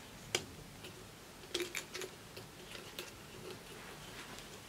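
Light, irregular clicks and taps from a string-worked marionette dog as its parts knock together while it is moved. There is one sharp click about a third of a second in and a quick cluster of clicks around one and a half to two seconds in.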